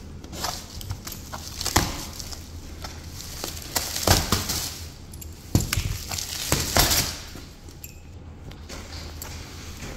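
Plastic stretch wrap crinkling and tearing as it is pulled off a large cardboard box by hand, in irregular crackly bursts that come loudest in the middle and die down near the end.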